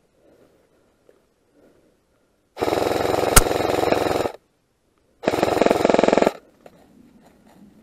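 Airsoft gun firing on full auto in two bursts, the first about two seconds long and the second about one second, with a single sharp click partway through the first burst.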